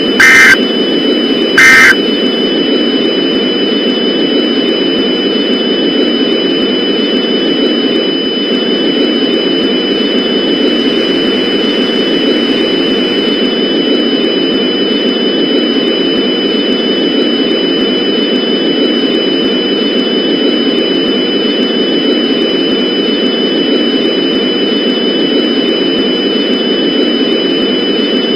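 Two short, loud EAS digital data bursts, the end of the three-burst end-of-message code that closes the alert, in the first two seconds. Then a steady, loud static noise with two thin high steady tones over it runs on.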